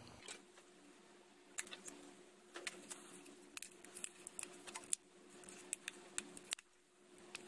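Faint, scattered clicks and taps of small plastic model-kit parts being handled and pressed into place, over a faint steady hum.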